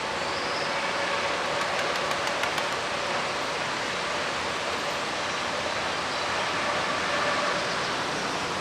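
Strong gusty wind rushing over the microphone, a steady even noise, with a faint steady tone underneath.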